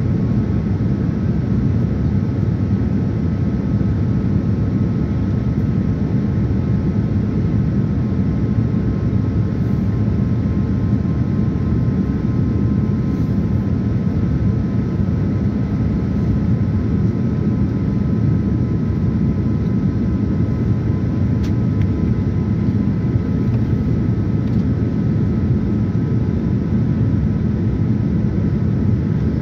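Steady in-cabin noise of a Boeing 787-9 airliner in flight during descent: a constant low engine and airflow noise, with a faint steady high tone above it.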